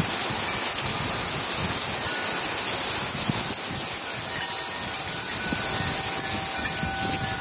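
Steady rain of a downpour hissing down, with now and then a few faint ringing tones from a metal tube wind chime.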